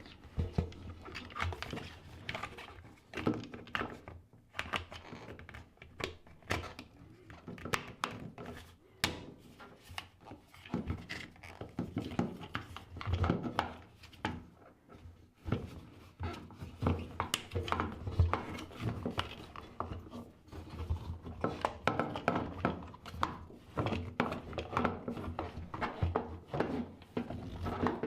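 Irregular knocks, clicks and light rattles of plastic and metal parts of a front-loading washer door being handled and fitted together by hand.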